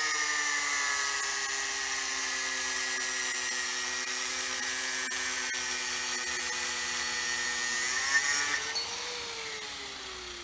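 Handheld angle grinder with a cut-off disc cutting a metal bar: a steady motor whine with a high grinding hiss, the pitch sagging slightly under load. About eight seconds in the grinding stops, the pitch briefly rises, and the motor winds down.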